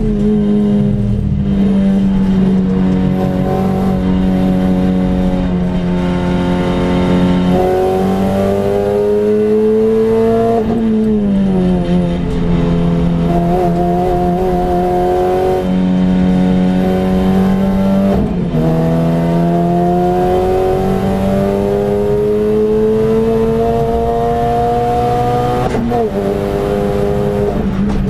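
Renault Clio RS engine heard from inside the cabin under hard acceleration, its pitch climbing steadily through each gear and dropping sharply at three upshifts.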